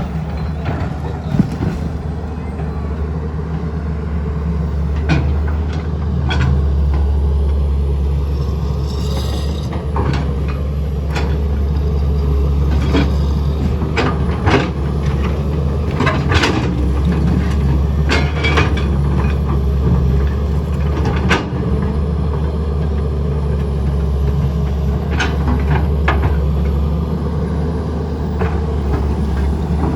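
Heavy diesel engine running steadily under load, with repeated sharp knocks and clatter of metal and debris through it.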